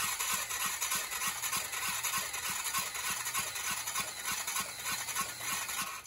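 Power drill whining steadily as it spins a 10 hp Briggs & Stratton L-head engine over for a compression test, with a regular pulse about four times a second from the turning engine. The engine is turning over with no compression at all, the sign of a valve-seat or head-gasket fault.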